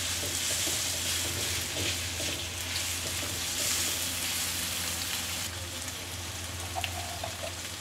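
Sliced sausage and green chilies sizzling in hot oil in a wok while being stir-fried with a spatula, a steady frying hiss over a low hum. The sizzle eases a little about five and a half seconds in, as the stirring stops.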